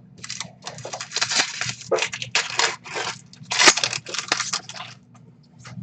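Trading-card pack wrapper being crinkled and handled: a string of rustling bursts that stops about five seconds in.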